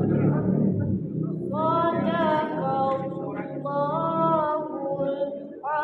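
A woman chanting Quran recitation: long, drawn-out melodic notes that waver up and down in pitch, a short break, then a new phrase starting at the very end.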